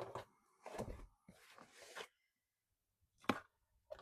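Cardboard shipping box being handled and opened by hand: a few knocks and a brief scraping rustle, then a sharp click about three seconds in.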